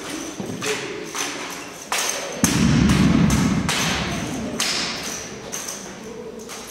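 Drill rifles being spun, caught and struck in an armed exhibition drill routine: an irregular series of sharp thumps and slaps from rifle and hands, with a heavier thud about two and a half seconds in.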